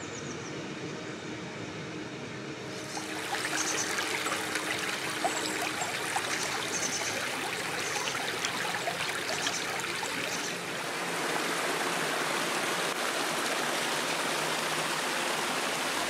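Small woodland stream running and splashing over stones, a steady rush of water that gets louder about three seconds in and again a little louder near eleven seconds.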